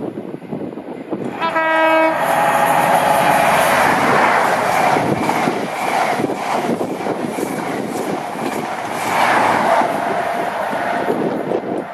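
High-speed diesel train (InterCity 125 with Class 43 power cars) sounds one short horn note about a second and a half in, then runs through the station at speed close by, with a loud rush and clatter of its coaches passing.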